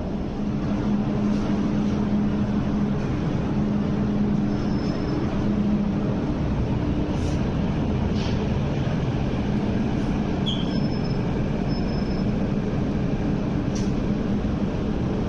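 MTR Kwun Tong Line train standing at the platform, its equipment giving a steady hum over a low station rumble, with a few faint short high beeps and clicks.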